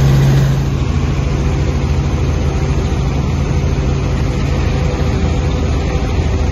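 Small helicopter's engine and rotor noise in steady flight, heard from inside the cabin as a dense, even low rumble. A steady low hum fades out about half a second in.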